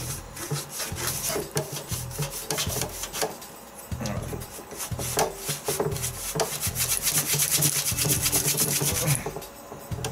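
Metal hard-drive casing scraped and rubbed back and forth across a thin board, a rasping sound in quick repeated strokes that speed up and grow louder past the middle, stopping about a second before the end. A low hum comes and goes underneath.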